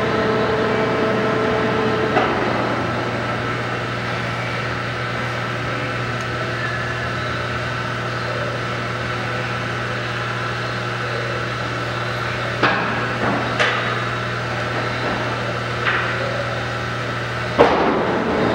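Monarch 36NN heavy engine lathe running with its chuck turning at a slow 37 RPM: a steady low hum from the gear drive, with a few sharp knocks. Near the end the hum cuts off at a loud knock.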